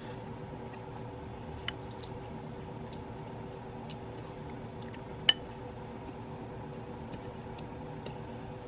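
Cutlery clicking against a plate a few times while eating, with one sharp clink about five seconds in the loudest, over a steady hum.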